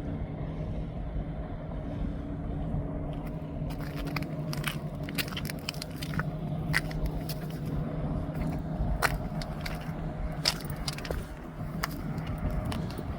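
A boat's engine running with a steady low hum, joined from about four seconds in by irregular sharp clicks and crunches close by.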